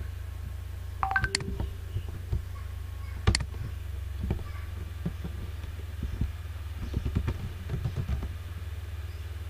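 Computer keyboard being typed on: scattered key taps, one sharp click a little over three seconds in, and bursts of taps later on, over a steady low hum.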